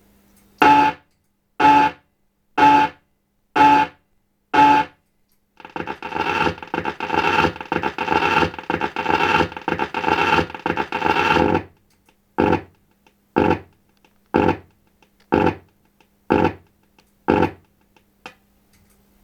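Williams High Speed pinball machine's sound board playing its test sounds through the cabinet speaker, every sound heavily distorted: five short tones about a second apart, then about six seconds of a harsh, noisy sound, then six more short bursts a second apart. A low hum sits in the quiet gaps.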